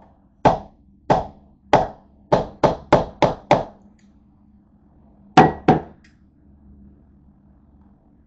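Sharp, hard knocks of a plastic condiment bottle being banged down on the countertop: three slow knocks, then a quicker run of five, then two more about five and a half seconds in.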